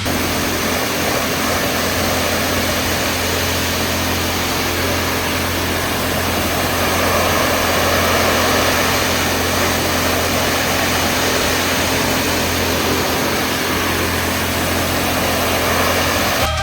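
High-pressure washer running: a steady motor and pump hum under the hiss of the water jet, blasting clogged soot out of a diesel particulate filter. The hiss swells a little around the middle.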